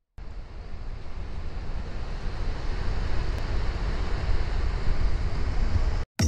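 Ocean surf washing on a beach with wind buffeting the microphone, a steady rushing noise with a heavy low rumble. It cuts off suddenly near the end, and music begins.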